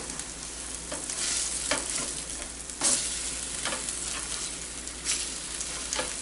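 Eggs sizzling in butter on a Blackstone 17-inch electric griddle, with several short scrapes of a spatula across the nonstick cooking surface as the eggs are turned. The sharpest scrape comes about three seconds in.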